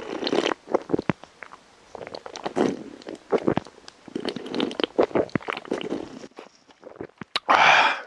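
A man gulping canned beer: a run of swallows and small throat clicks one after another, then a loud breathy exhale near the end.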